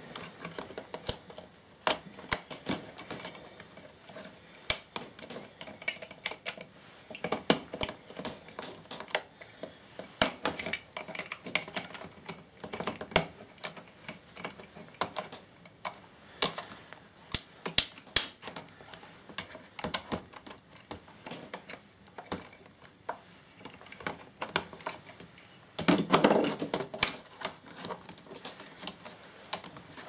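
Plastic clicking and snapping as a Toshiba laptop keyboard is levered out of its retaining clips with a small screwdriver and a Stanley knife blade, the keys clacking as it flexes. Irregular sharp clicks throughout, with a longer, louder clatter near the end.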